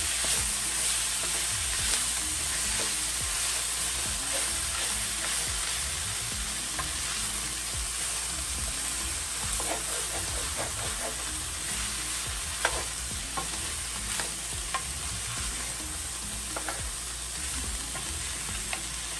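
Frozen mixed vegetables with peas and carrots sizzling in hot oil in an enamelled braiser while a wooden spoon stirs them, with scrapes and light knocks of the spoon on the pan and one sharper knock about two-thirds through.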